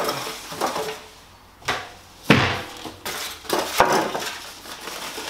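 Packaging being handled: white foam packing pieces pulled off a boxed device and its plastic wrapping rustling, with several knocks on a tabletop, the loudest a little over two seconds in.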